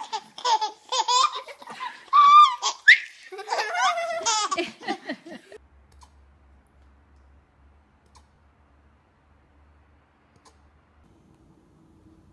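A baby laughing in hearty belly laughs and squeals, with others laughing along, which stops abruptly about halfway through. The rest is nearly quiet with a faint low hum.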